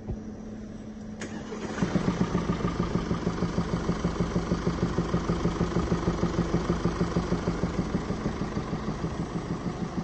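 Mercedes-Benz OM654 four-cylinder diesel in a 2017 E-Class being cranked about a second in. It catches almost at once and settles into idle with a regular knock about five times a second. This is the deep knocking that the mechanics trace to worn rocker arms wearing down.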